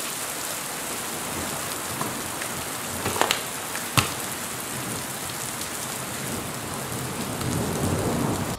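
Heavy rain falling steadily, an even hiss, with a couple of sharp knocks about three and four seconds in.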